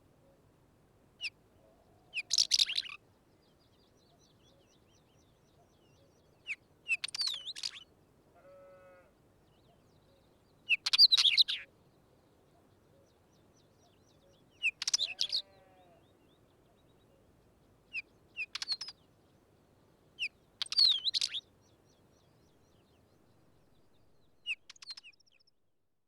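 Wheatear singing: seven short, scratchy, high-pitched song phrases, each opened by a brief clear note, repeated about every three to four seconds.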